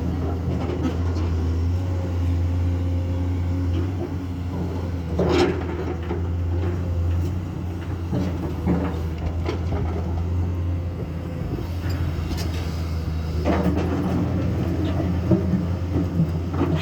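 Komatsu excavator's diesel engine running steadily at work, with a few heavy knocks, one about five seconds in, another a little past the middle and one near the end.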